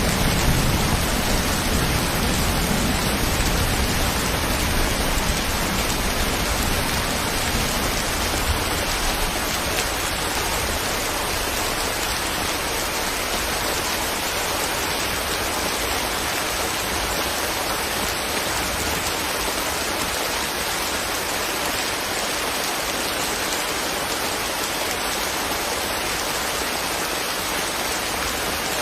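Steady rain falling, an even hiss of raindrops. The tail of a low thunder rumble dies away over the first several seconds.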